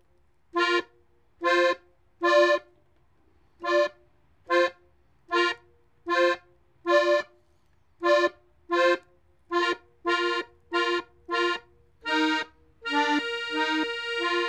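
Gabbanelli diatonic button accordion in F playing a melody slowly on the right-hand treble buttons, one short detached note at a time, a little over one note a second. Near the end one note is held down while other notes change over it.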